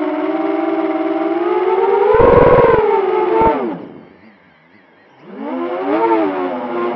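Whine of a 6-inch FPV quadcopter's brushless motors and propellers (2207 1650kv motors on 6S), a high, siren-like tone whose pitch rises and falls with throttle. It climbs to a peak about two seconds in, with a short low rumble, then drops away steeply as the throttle is cut for a flip. It is nearly silent for about a second and rises again as throttle comes back.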